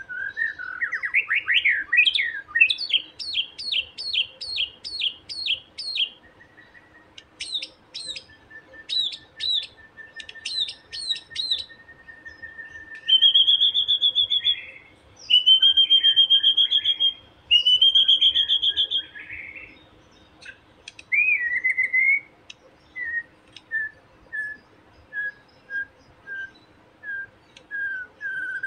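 Young wild white-rumped shama (murai batu) singing and calling. A rapid run of rising notes opens, followed by a string of repeated whistled downslurs and a long held whistle, then three loud harsh buzzy phrases in the middle and a slow series of short whistled notes near the end. This is a taunting call of the kind used to provoke a rival shama into singing.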